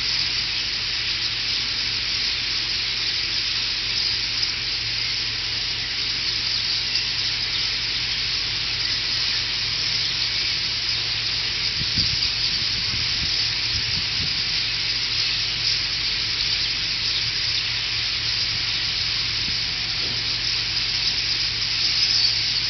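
Dense, steady clamour of a huge flock of several thousand birds massed in one tree before autumn migration, countless calls blending into a continuous high-pitched din.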